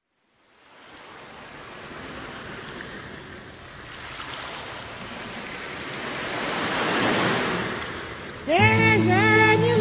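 Ocean waves washing in, fading in from silence and swelling to a peak before easing off. Near the end a song with a singing voice starts abruptly.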